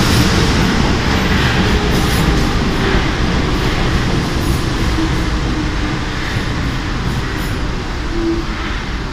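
RATP MF77 metro train on steel wheels running into the station along the platform and slowing, its steady running noise gradually easing as it loses speed.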